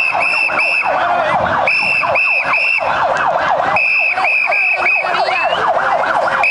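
Sirens in a rapid yelp, many quick falling sweeps overlapping, with a shrill whistle blown in groups of three or four short blasts about every two seconds.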